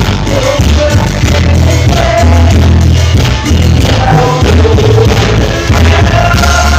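Cumbia band playing live through a loud sound system, with a heavy pulsing bass beat and a singing voice.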